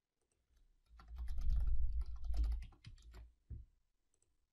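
Typing on a computer keyboard: a quick run of keystrokes lasting about two seconds, with a dull low thud under the key presses, then one heavier single key press near the end.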